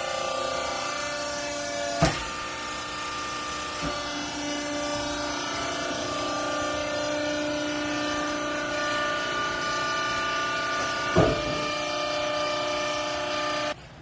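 Textile baler's hydraulic pump motor running with a steady whine, with two sharp clunks, one about two seconds in and one about eleven seconds in. The sound stops abruptly just before the end.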